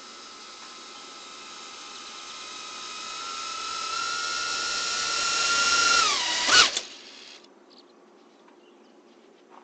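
A 2.5-inch 3S cinewhoop FPV drone's brushless motors and propellers whining steadily and growing louder. About six seconds in the pitch drops as the throttle comes off, there is a short sharp knock, and the motors stop, leaving faint birds and insects.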